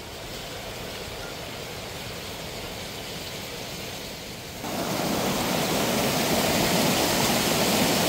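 Small waterfall, a steady rush of falling water that steps up louder about four and a half seconds in.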